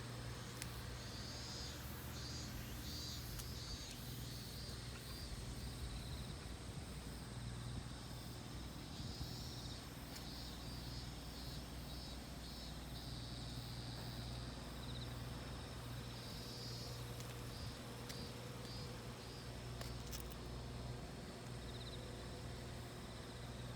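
Cicadas singing in repeated pulsing phrases that come and go, over a steady low hum.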